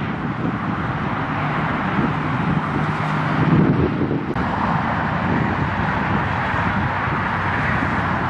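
Wind buffeting the microphone over the steady low drone of a distant approaching diesel locomotive. About four seconds in the sound shifts to a steadier, brighter rush.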